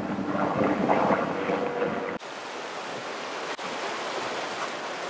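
A distant MD 500 helicopter hums over wind and river noise for about two seconds, then a sudden cut to rushing shallow river water and splashing as people wade across in boots.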